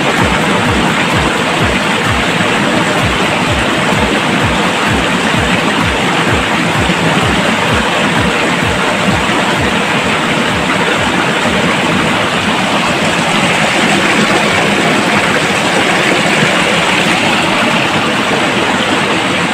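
Steady rush of river water tumbling over rocks in a small rapid. A low, even beat of about two to three thumps a second runs faintly underneath and fades out about halfway through.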